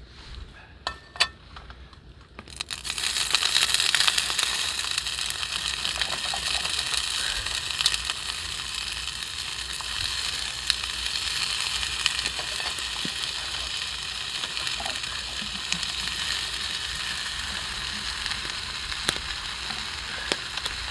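Food sizzling in a hot frying pan: after a few light handling clicks, the sizzle starts suddenly about two and a half seconds in as the food hits the pan, loudest just after, then runs on steadily with the odd small click.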